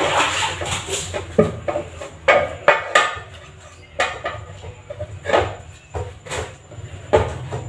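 Ulekan pestle pounding and grinding spice paste in a cobek mortar: irregular knocks against the mortar with scraping strokes in between.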